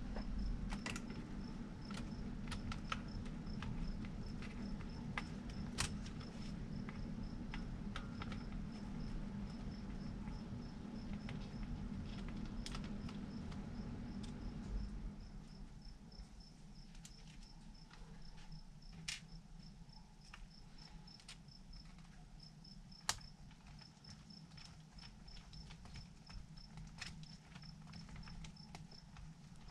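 A cricket chirping in a steady, even high-pitched pulse, with scattered small clicks and taps as parts of the RC truck are handled. A low background rumble drops away about halfway through.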